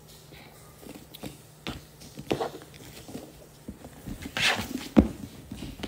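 Cardboard shoe box being handled and opened: a few light taps and knocks, a scraping rustle about four and a half seconds in, then a sharper knock about five seconds in.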